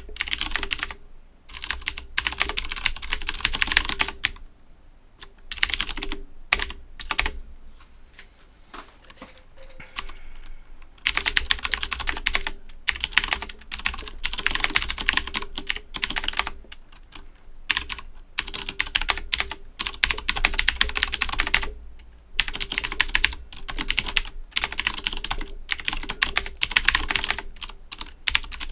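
Typing on an Owltech OWL-KB109BM II mechanical keyboard with clicky Cherry MX Blue switches: fast runs of keystrokes broken by short pauses, with only a few scattered keystrokes in a lull about a third of the way in.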